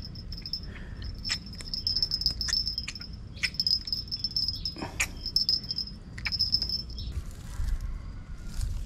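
Insects chirping in a steady high-pitched trill that breaks off now and then and stops about seven seconds in, over scattered short clicks and rustles as a small fish is unhooked by hand.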